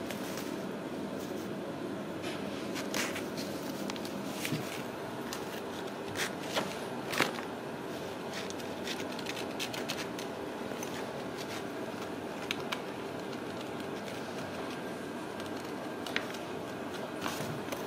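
Ragdoll kittens pawing and scratching at a fabric pet tent's flap: scattered soft scratches and taps, with a few sharper clicks about six to seven seconds in, over steady room noise.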